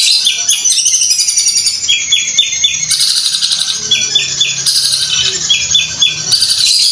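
Long-tailed shrike (Madura cendet) singing loudly and continuously: a fast, sewing-machine-like buzzy trill, broken by runs of three or four short clipped notes repeated over and over.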